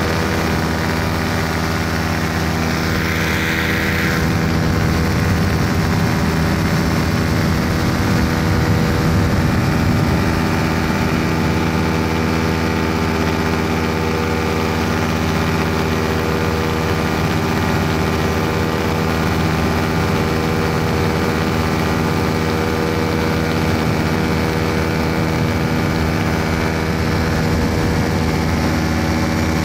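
A light aircraft's piston engine and propeller running steadily at constant power in flight, with a brief hiss about three seconds in.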